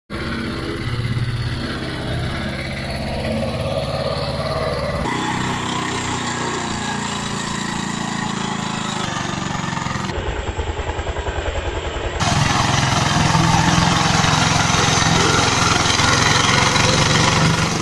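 The small engine of a Pagong (turtle tiller) walk-behind hand tractor runs steadily as the machine works through deep, waterlogged paddy mud. The sound shifts abruptly a few times between cuts. Its firing beat is most distinct about ten seconds in, and it is loudest in the last few seconds.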